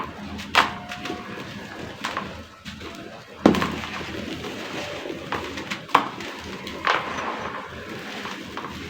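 Dried sand-cement and clay crumbling into a tub of water: irregular sharp crunches over a steady gritty hiss, the loudest about three and a half seconds in.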